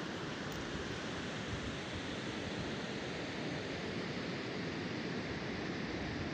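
Steady hiss of sea surf washing over a rocky shore at low tide.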